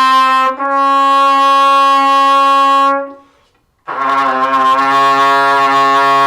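Trumpet playing long held tones. One steady note is sustained for about three seconds with a brief break near the start, then after a pause for breath a second long note comes in that reaches lower in pitch.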